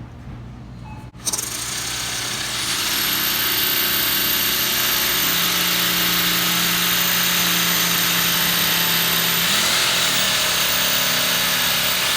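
Orbital jigsaw on a low orbital setting cutting through a stack of plexiglass sheets; the low orbit is chosen so the plastic doesn't crack. The saw starts about a second in, its whine climbs to full speed and then runs steadily, with a brief shift in pitch near the end.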